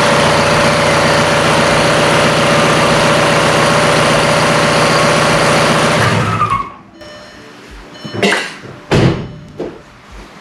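2002 VW Jetta's 1.9-litre turbodiesel running loudly and steadily while its cooling system is bled after a radiator replacement, then switched off about six seconds in. A few separate knocks follow.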